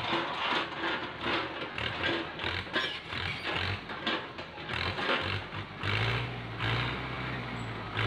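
Tractor diesel engine running while its hydraulic grab crane lowers and grabs oil palm fruit bunches off the ground and lifts them, the sound surging unevenly as the hydraulics work.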